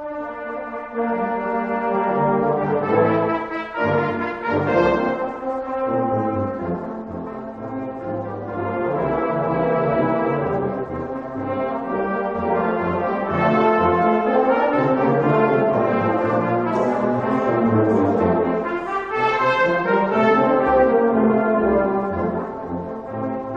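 Brass ensemble playing instrumental music in held, sustained chords.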